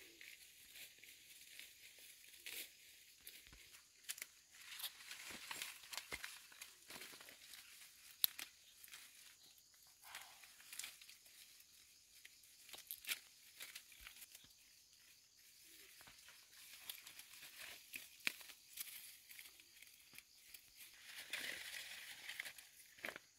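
Faint rustling and crackling of leaves and grass stems, with scattered sharp clicks, as plants are handled and brushed.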